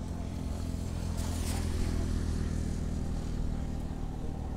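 An engine runs steadily in the background with a low hum. About a second and a half in there is a brief hissing splash as a thrown cast net spreads and lands on the water.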